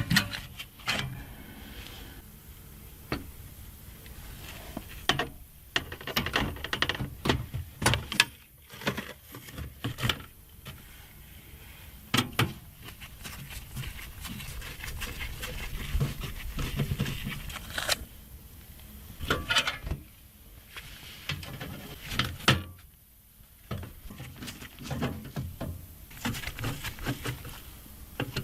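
Hands fitting a motherboard into a PC case: irregular clicks, taps and rustles of the board, case panels and tools being handled.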